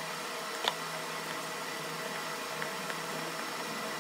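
Steady hiss with a faint hum running under it, and one short, sharp click just under a second in.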